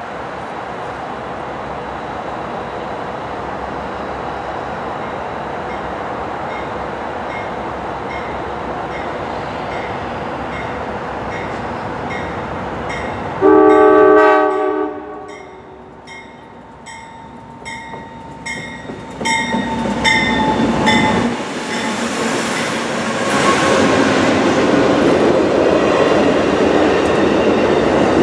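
Amtrak GE Genesis diesel locomotive approaching, its bell ringing in a steady rhythm over the rumble of the train. About halfway through the horn gives one short, loud blast. Near the end the passenger cars roll past close by, wheels rumbling and clacking on the rails.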